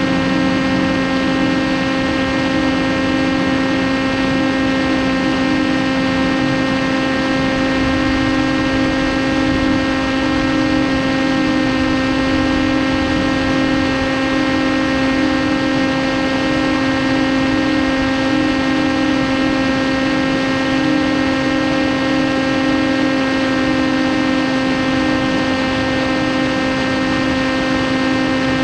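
Electric motor and propeller of an FPV flying wing running at steady cruise throttle: an unchanging whine at one pitch, with a rush of wind noise under it.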